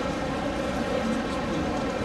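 Steady background din of a busy exhibition hall, an even blend of many distant voices and general noise with nothing standing out.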